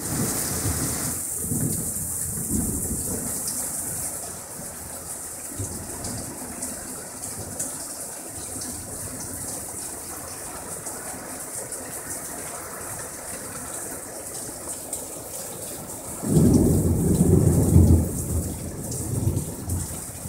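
Heavy thunderstorm rain pouring down steadily and splashing off the roof edge, with low thunder rumbling in the first few seconds. About sixteen seconds in comes a sudden loud clap of thunder, lasting about two seconds.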